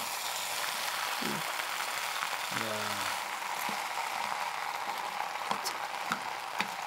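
Dakgalbi, spicy chicken stir-fry, sizzling steadily in a frying pan as it is stirred with a wooden spatula, with a few light clicks in the second half.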